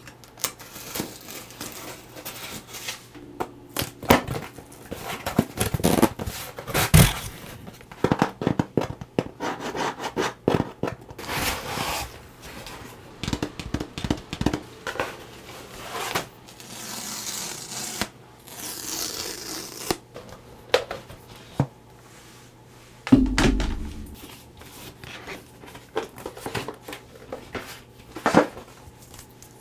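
Close-miked unboxing: a box cutter slicing into a cardboard shipping box, then cardboard and paper packaging scraping, tearing and crinkling in the hands, with scattered taps and clicks. A few rasping tears come a little past the middle, and a dull thump follows.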